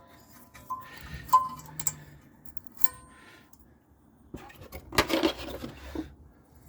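Metal brake hardware clips being pried and pulled out of a rear brake caliper bracket: several sharp metallic clinks that ring briefly, then a burst of scraping and rattling about four and a half seconds in.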